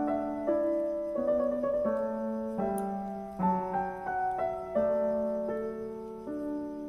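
Background piano music: a slow melody of notes that ring on and fade.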